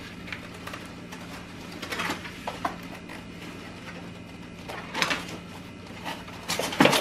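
Packaging of a newly delivered coffee machine being opened: rustling and scraping in short bursts, the loudest near the end, over a steady low hum.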